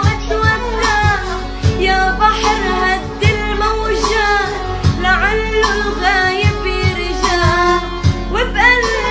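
Arabic song with a singing voice over a sustained accompaniment and a steady, regular drum beat.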